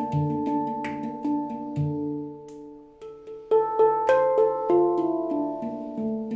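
Steel Monkey Mystic 7 handpan, tuned D3 ding with A3 A#3 D4 E4 F4 A4 C5, played by hand: struck notes ring on and overlap, with light finger taps between them. The low ding sounds about two seconds in, the playing thins out briefly, then a quick run of notes begins about three and a half seconds in.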